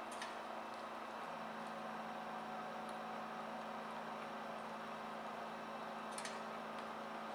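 Stepper motors of a homemade CNC plasma table humming steadily as the gantry runs a tool path, with a second, lower tone joining about a second in. Two faint clicks sound, one right at the start and one near the end.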